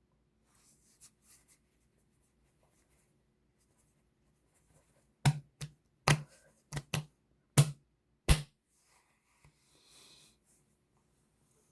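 A run of about seven short, sharp clicks or knocks over about three seconds in the middle, with faint rustling before and after.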